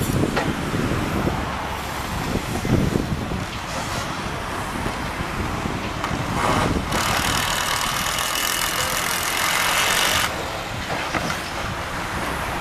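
Steady outdoor rumble of road traffic, with a louder hiss from about seven to ten seconds in.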